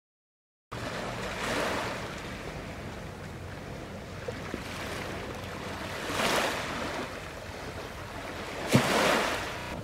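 Small waves washing onto the shore: three rushing swells, each about a second long, over a low steady hum. The sound starts abruptly just under a second in.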